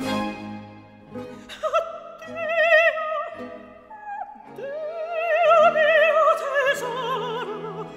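High operatic voice singing an Italian aria in long held notes with wide vibrato, over orchestral accompaniment. The voice comes in about a second and a half in, breaks off briefly around the middle, then returns.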